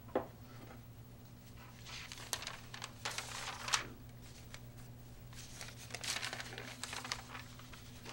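Newspaper pages rustling and crinkling as they are handled, in two spells of a second or two each, over a steady low hum. A single sharp click comes just at the start.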